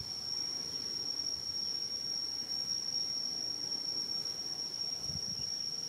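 Steady, high-pitched drone of insects: one unbroken shrill tone that holds level throughout.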